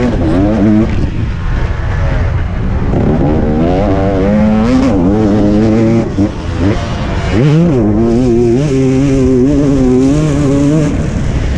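Motocross bike engine heard close from on the bike under race throttle, its pitch climbing and dropping repeatedly through gear changes and throttle lifts, with a brief cut in power about six seconds in.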